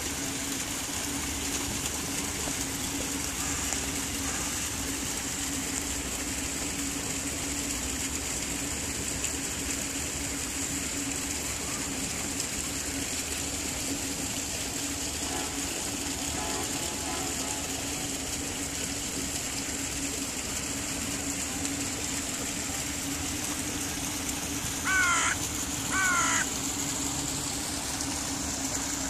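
A crow caws twice, about a second apart, near the end, louder than everything else. Underneath runs a steady wash of noise with a low hum, fitting the pond's running water.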